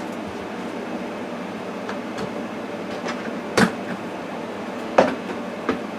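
Two sharp knocks, about three and a half seconds in and at five seconds, with a few fainter taps, as objects are handled and put away, over a steady room hum.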